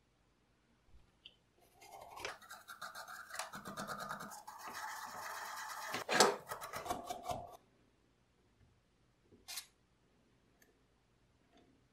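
Toothbrush bristles scrubbing the grimy aluminum body of an old syringe in quick back-and-forth strokes for about six seconds, with a sharper knock partway through. Near the end comes one short spray hiss from an aerosol can.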